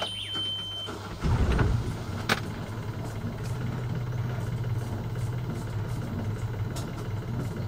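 A high steady beep for about a second, then the sailboat's inboard diesel engine cranks, catches and settles into a steady idle. This is a restart of an engine that had been giving white smoke after algae was sucked into its cooling-water system.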